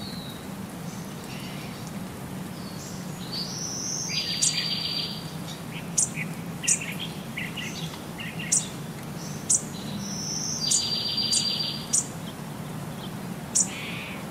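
Small birds chirping: high, short chirps and sharp chip notes scattered throughout, with the same buzzy trilling phrase twice, about six seconds apart, over a steady low hum.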